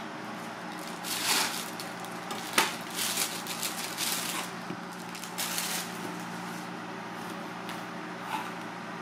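Thin plastic bag rustling and crinkling as a pepper is taken out of it, in several bursts, with one sharp knock about two and a half seconds in. A light knife tap on a plastic cutting board near the end, over a steady low hum.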